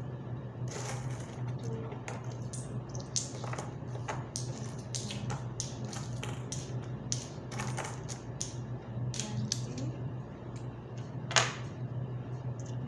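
Coins clicking and clinking as they are handled and sorted on a table, in irregular taps with one louder clack near the end.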